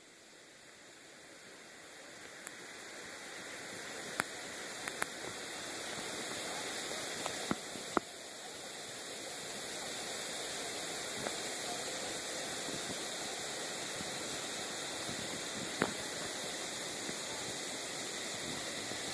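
Waterfall water rushing, a steady hiss that grows louder over the first several seconds and then holds even, with a few brief clicks.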